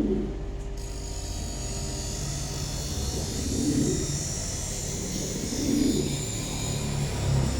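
Domestic pigeons cooing, a low swelling coo roughly every two seconds, over a steady low mechanical hum.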